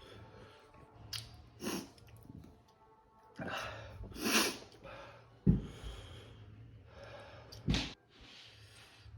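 Sharp sniffs and breaths, with some chewing, from a person eating chicken wings in very hot sauce, her nose running from the heat. About five and a half seconds in there is a short low thump.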